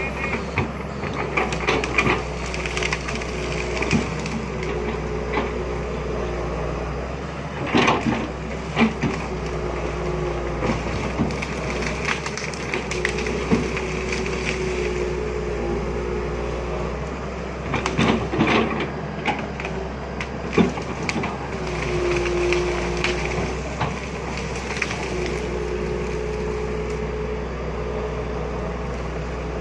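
Komatsu hydraulic excavator running, its engine droning and hydraulics whining on and off as the bucket works at a tree and brush. Sharp cracks and snaps of breaking wood come several times, loudest about 8, 18 and 21 seconds in.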